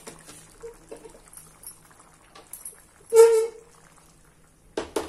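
Steel pan being slid and lifted off a gas stove's grate: a short, loud squeal about three seconds in, then a clank near the end.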